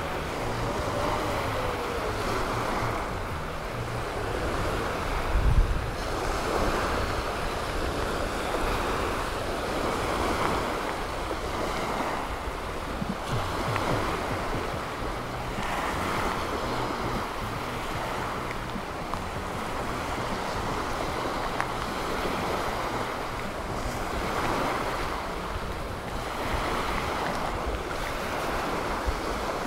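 Gentle surf washing up on a sandy beach, the wash swelling every few seconds. Wind rumbles on the microphone throughout, with a brief louder gust about five seconds in.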